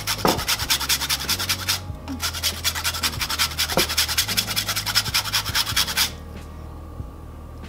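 Ginger grated on a fine metal rasp grater: rapid, rhythmic scraping strokes, a brief pause about two seconds in, then more strokes that stop about six seconds in.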